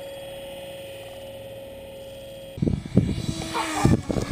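An electric RC plane's motor whining steadily at one pitch. About two and a half seconds in, this gives way abruptly to loud, irregular wind buffeting on the microphone, with the motor's whine gliding and rising near the end.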